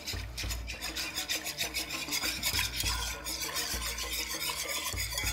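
Wire whisk beating cold milk and cornstarch in a pot, several quick scraping strokes a second against the pot's side and bottom, dissolving the starch.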